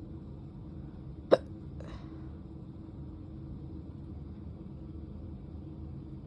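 A person hiccuping once, a short sharp hiccup about a second in, with a fainter sound half a second after it.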